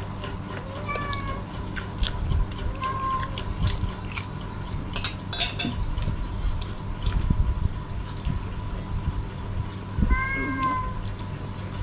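A cat meowing in short calls: one about a second in, another around three seconds, and one near the end. A few sharp clinks come in between, from spoons on dishes.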